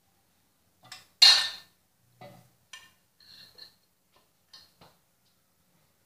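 Ceramic plates being handled and set down on a counter: a run of clinks and knocks, the loudest about a second in, with a short ringing chink about three seconds in.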